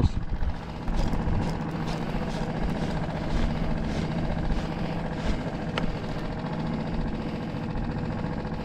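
Small outboard motor on a one-person skiff idling steadily out of gear, with a few short sharp clicks scattered over it.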